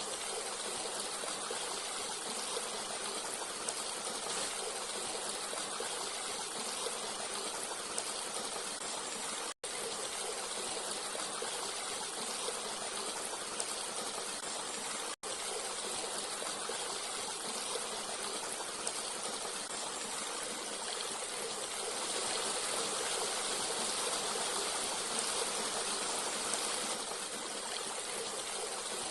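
Forest stream running steadily, a constant rushing of water. The sound cuts out completely for an instant twice, about a third and about halfway through, and swells slightly louder near the end.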